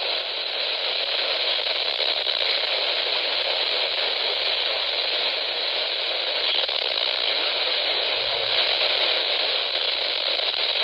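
Steady hiss of static from a weather radio receiver on a weak NOAA Weather Radio station, with the broadcast lost under the noise and interference from another station.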